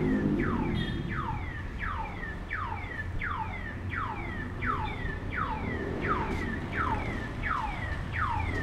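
Electronic alarm sounding a steady, repeating falling chirp, about two a second, with a fainter, higher falling tone between the chirps.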